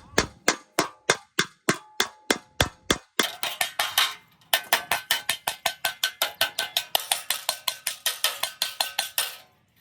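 Hammer blows on metal in a steady rhythm, each with a short metallic ring: about three or four strikes a second, quickening to about five a second a few seconds in, then stopping just before the end.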